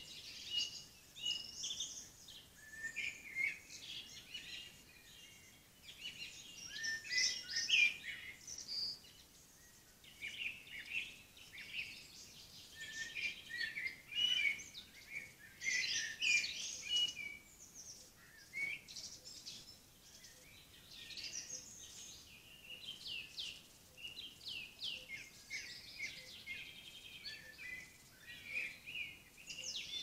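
Songbirds singing: short chirping and trilling phrases follow one another with brief gaps, over faint background hiss.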